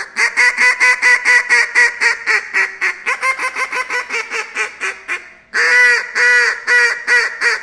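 Handheld duck call blown as a greeter call: a fast run of consecutive duck quacks, about five a second, for about five seconds. After a short break, a second run starts with longer, louder quacks.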